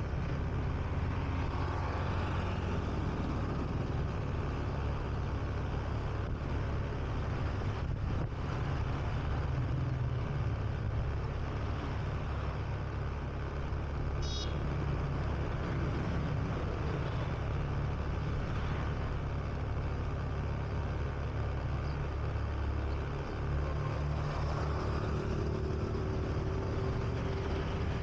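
Honda Beat scooter's single-cylinder engine running steadily while riding, with a low rumble and road noise heard from the rider's chest. A brief high chirp about 14 seconds in.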